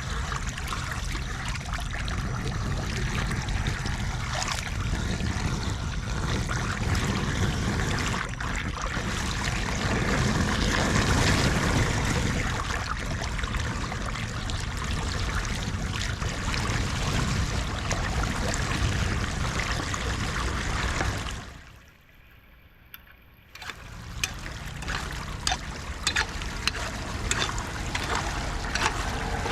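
Floodwater rushing and gurgling into a street storm drain, a steady wash of water noise. It drops away briefly about two-thirds of the way through, then resumes.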